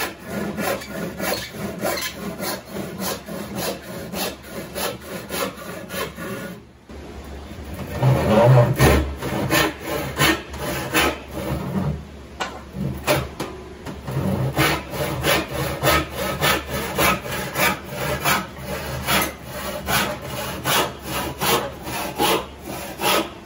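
Freshly sharpened hand saw cutting through a wooden board in quick, regular strokes, about two to three a second. It shows two cuts, a rip cut and a cross cut, with a brief stop about seven seconds in.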